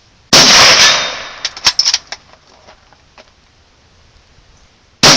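Two rifle shots from a Gewehr 98 Mauser bolt-action rifle firing hand-loaded 7.92×57mm rounds, each a loud crack with a long echoing tail; one comes just after the start and one near the end. Between them, about a second after the first shot, comes a quick run of sharp metallic clicks and clinks.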